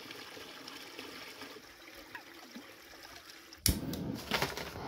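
A shallow stream trickling over stones. About three and a half seconds in, a sharp click, then the rushing hiss of a small gas-canister backpacking stove burning under a pot.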